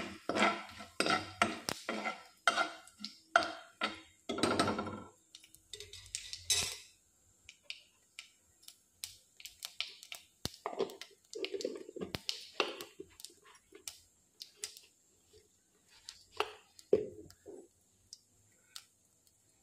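Steel ladle clinking and scraping against a nonstick kadhai while stirring cumin seeds and bay leaves in hot oil. The strikes come thick and fast for about the first five seconds, then thin out to occasional clinks and knocks.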